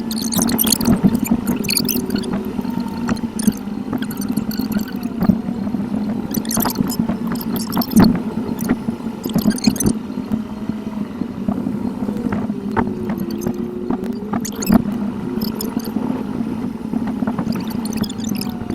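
In-car driving noise recorded by a dashcam and played back sped up eight times, so the road and engine sound becomes a steady gurgling rush with gliding squeaks and rapid clicks.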